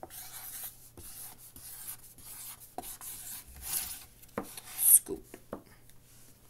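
Handwriting: short scratchy strokes of a writing tool across paper, the loudest a little past the middle, with a few light taps near the end.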